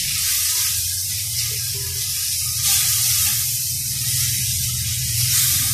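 Chicken and vegetables sizzling on high heat in a metal pot, just wetted with sauce and water and being stirred with a spatula: a steady hiss, over a steady low hum.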